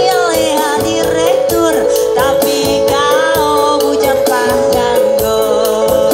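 Live music over a PA system: a woman singing a Dayak regional song over held chords, with a steady percussive beat.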